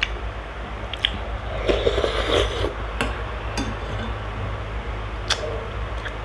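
Close-up eating sounds: wet chewing and mouth noises, loudest about two seconds in, with several sharp clicks of a metal fork against a glass bowl.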